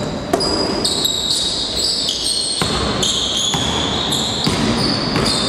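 Basketball game on a hardwood gym floor: the ball bouncing in a series of sharp knocks while sneakers squeak in high, shifting chirps.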